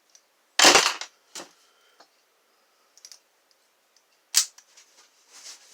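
A lock and its picking tools being handled: one loud sharp clack about half a second in, a few quieter clicks, and another sharp click about four and a half seconds in.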